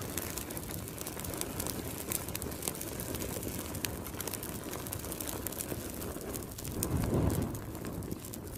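Crackling fire sound effect: a steady noisy hiss full of small crackles, with a deeper swell about seven seconds in.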